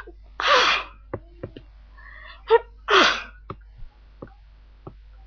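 A person sneezing twice, about two and a half seconds apart, the second sneeze preceded by a gasping breath in.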